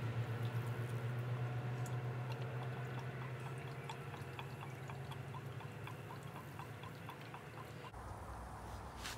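Gasoline pouring from a plastic gas can into a small engine's fuel tank: a steady pour that thins out, then a run of quick glugs, about three a second, as air gurgles back into the can.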